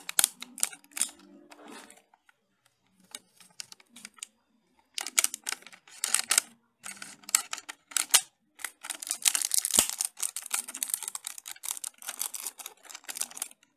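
Clear plastic bag crinkling and rustling as a circuit board is handled inside it and worked out of the wrapping: a few scattered crackles at first, growing into dense, continuous crinkling from about five seconds in.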